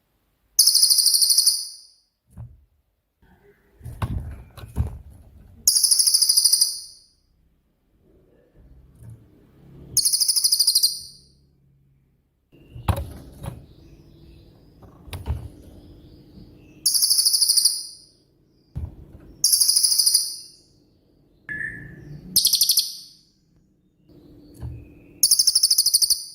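A cililin songbird repeating a loud, high-pitched trilled phrase about a second long, nine times, every two to three seconds. Soft low knocks come between the phrases.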